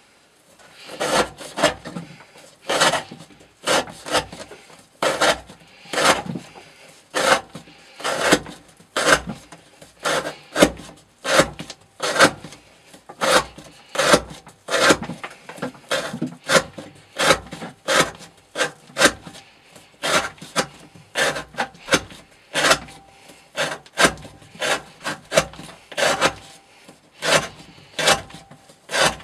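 Elmax steel knife blade worked in short rasping strokes, roughly one a second, each opening with a light knock.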